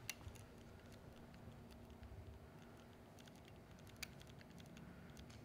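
Faint clicking of a DSLR's buttons as the photographer reviews shots on its rear screen, with a sharper click right at the start and another about four seconds in.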